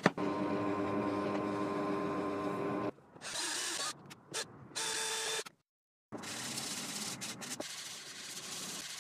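Cordless drill driving screws into a wooden panel: first a long burst of steady motor whine, then two shorter bursts. About six seconds in, after a pause, comes a steady rubbing sound of a small wooden block being sanded by hand.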